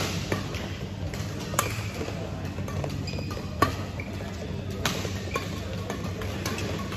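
Badminton rally: sharp cracks of rackets striking the shuttlecock every second or two, the loudest about halfway through, over a steady low hum of the hall.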